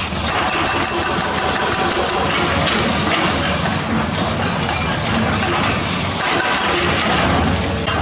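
Diesel engine of a 20-tonne-class hydraulic excavator running steadily.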